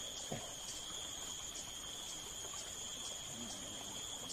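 Steady high-pitched insect drone, a single held tone with a fainter higher overtone, over low forest hiss; a short soft knock about a third of a second in.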